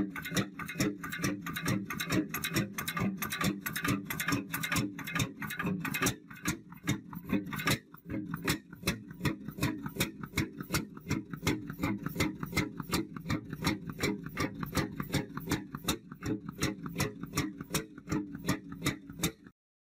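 Old stationary engine with a big flywheel running at a steady pace, making an even mechanical clicking of about three beats a second over a low running hum. The sound cuts off just before the end.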